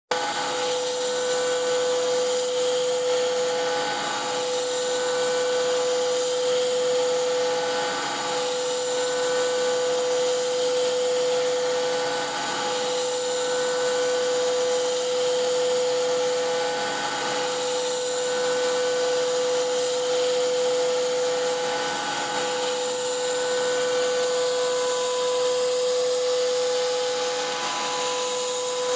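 CNC router's 11 hp Hiteco spindle at 10,000 rpm driving a three-flute bit through an adaptive pocketing cut: a steady cutting whine with one strong tone, dipping briefly about every four to five seconds.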